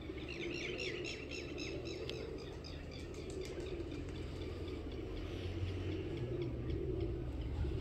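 Small birds chirping in quick high twitters, busiest over the first two seconds and fainter again later, over a steady low hum.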